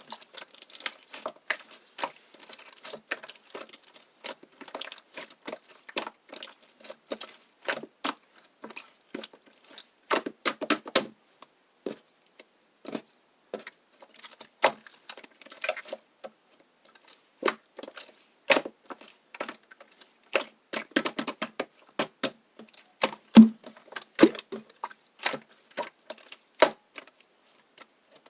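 Slime being squeezed and pressed by hand, giving a run of irregular sticky clicks and pops, some in quick clusters.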